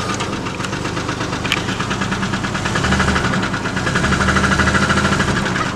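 Ford truck engine idling with a rapid, even ticking knock, the noise the owner wants diagnosed and fixed. The engine note swells a little louder from about three seconds in and settles again near the end.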